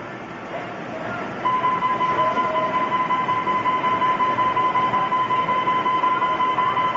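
Arcade game machine's electronic sound: a steady high tone with a fast pulsing sets in about a second and a half in, over a dense noisy din of arcade machines.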